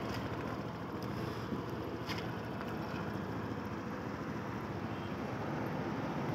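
Motorcycle engine running steadily, with a faint click about two seconds in.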